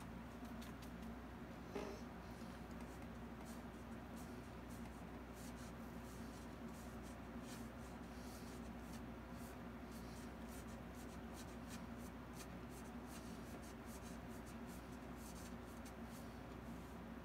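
Faint, scratchy strokes of a shaggy-tipped paintbrush dabbing and dragging on a canvas, over a steady low room hum; a single sharper click about two seconds in.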